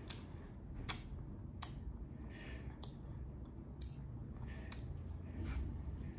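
Close-miked eating of a barbecue rib: sharp mouth clicks and smacks, roughly one a second, over a low steady hum.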